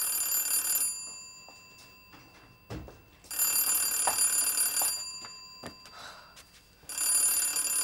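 Desk telephone bell ringing in repeated rings, each about a second and a half long with about two seconds between them: an incoming call not yet answered. A thud sounds between the first and second rings.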